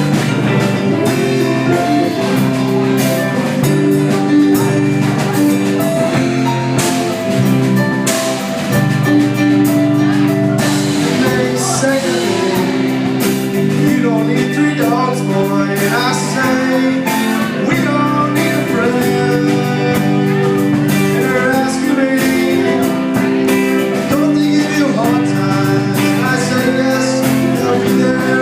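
Music with guitar, drums and singing, in a blues-rock style.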